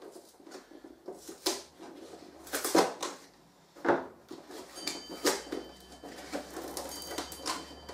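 A cardboard postal box being cut and torn open with a knife: irregular scraping, ripping strokes of the blade through packing tape and cardboard.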